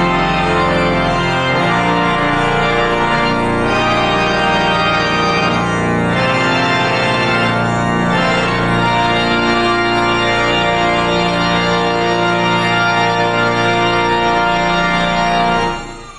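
Church organ playing the wedding processional in full, sustained chords; the music stops near the end and the final chord dies away in the room's echo.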